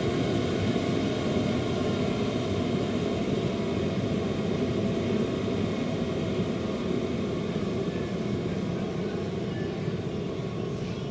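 Enclosed diesel heater running: a steady rush of its combustion fan and burner with a faint whine over it, growing slightly quieter as the heater ramps itself down to hold the set temperature.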